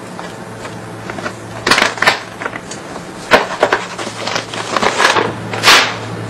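Several sharp clacks and rustles of things being handled, the longest a swish near the end, over a steady low hum.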